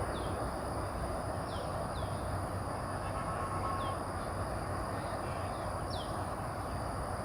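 Outdoor ambience of steady, distant traffic-like rumble under a constant high whine, with a bird giving short, high, falling chirps every second or two.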